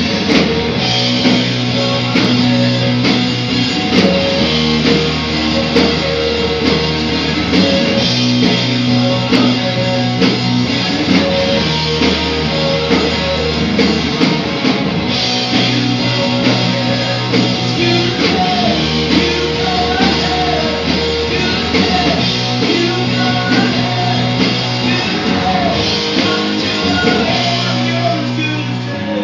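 Live rock band playing loudly: amplified guitar and drums with a singing voice, recorded on a phone.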